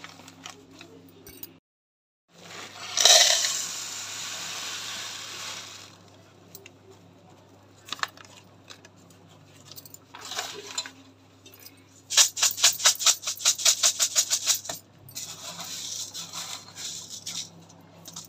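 Kitchen handling sounds at the stove. A rushing noise starts about two seconds in and fades over a few seconds, scattered clinks follow, and then comes a fast, loud rattle of some eight strokes a second lasting about two and a half seconds. A faint steady hum sits underneath.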